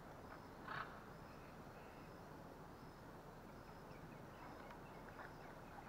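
Near silence: faint outdoor ambience with a faint, high chirp repeating about once a second, and a brief faint rustle under a second in.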